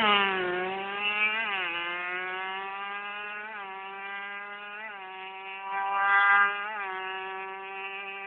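Yamaha 125Z two-stroke single-cylinder motorcycle accelerating hard and pulling away, its high-pitched engine note fading with distance. The pitch dips briefly at each gear change, about four times.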